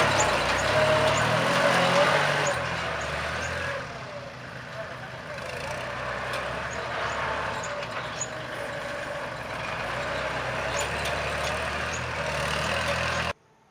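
A heavy vehicle's engine running steadily. It is louder for the first couple of seconds, settles lower, and then cuts off abruptly near the end.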